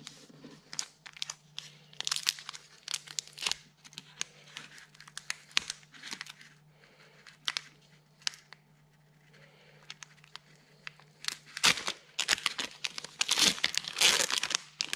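Foil Pokémon booster pack wrapper crinkling as it is handled. Near the end it is torn open in a louder, denser run of crackling.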